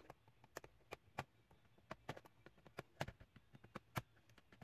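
Faint, irregular small plastic clicks and taps as a plastic pry tool and fingers work the retaining clips along the top edge of a Dell Inspiron 3521 laptop keyboard to release it.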